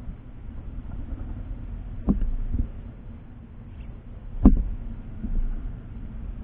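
Knocks and taps on a bird photo booth feeder close to the microphone, as birds land and peck, over a steady low rumble; the loudest knock comes about four and a half seconds in.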